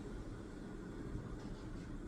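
Steady low rumble of room background noise, with a few faint, brief scratchy sounds near the end.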